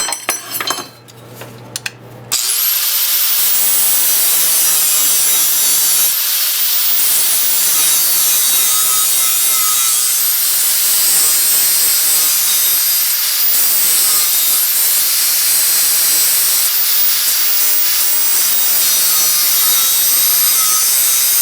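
A high-speed power tool starts about two seconds in and runs steadily with a high whine, sanding inside the bottle-opener hole cut in a small steel pry bar. A few light clicks come before it starts.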